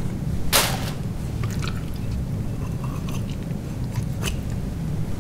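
A blade cutting through the neck skin and cartilage of a raw chicken: one sharp crunch about half a second in, then a few faint snips and clicks, over a steady low hum.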